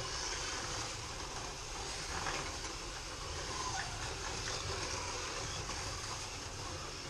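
Several 1:32 FLY slot cars lapping a plastic Scalextric track: a steady whirring hiss of small electric motors and wheels running along the slotted track.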